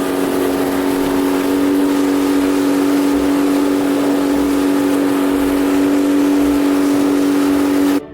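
Boat engine running at a steady cruising speed, one even pitch, with wind and water rushing over it; it cuts off abruptly at the very end.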